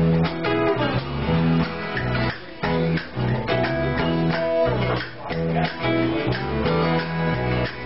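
Two guitars played live, an acoustic guitar among them, strumming chords in a steady rhythm.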